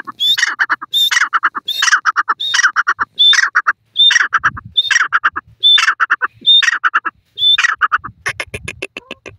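Male grey francolin calling: one phrase repeated a little under once a second, each a high clear note followed by a quick rattle of lower notes. The calls give way to a fast series of clicking notes near the end.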